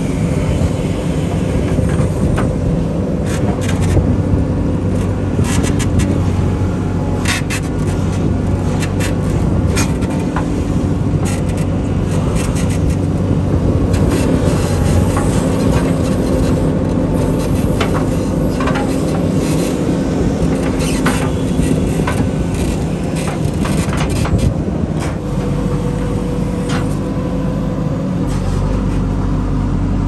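Diesel engine of a JCB 3DX backhoe loader running steadily under load, with scattered clicks and knocks from the digging and loading. The engine note shifts lower a few seconds before the end.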